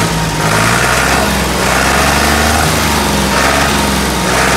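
Ford 4600 tractor engine running steadily and smoothly after starting, heard near its upright exhaust muffler.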